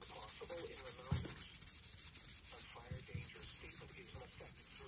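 Nevr-Dull wadding polish rubbed briskly back and forth on a pocket knife's steel blade, a rapid run of scratchy rubbing strokes as the blade is cleaned and polished.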